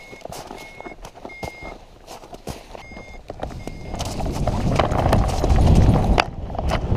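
Footfalls crunching on snow during a hang glider's launch run, with a variometer beeping in short high pips about every half second that stop about three seconds in. From about four seconds in, wind noise on the glider-mounted microphone builds and grows louder as the glider takes to the air.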